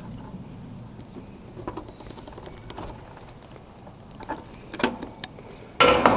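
Hand crimping tool crimping female connectors onto wire: small clicks and handling noises, then a loud sharp clack near the end with a ringing tail.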